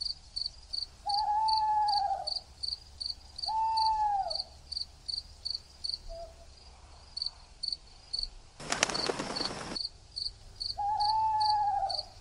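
Night-time ambience track: crickets chirping steadily, a few chirps a second, with an owl-like hooting call three times, each lasting about a second. A brief hiss lasting about a second comes about two-thirds of the way through.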